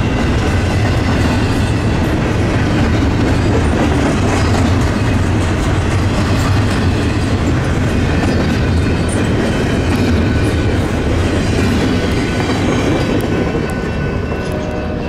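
Double-stack intermodal freight train rolling past, a steady loud rumble and clatter of its well cars' steel wheels on the rails. The sound eases off near the end as the last car goes by.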